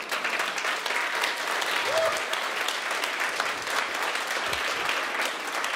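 Congregation applauding: many hands clapping in a dense, steady patter.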